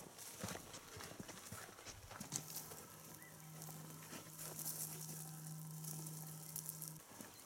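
Footsteps of people walking on dry ground and through dry bush, a loose run of irregular steps and crunches. A steady low hum comes in about two seconds in and stops shortly before the end.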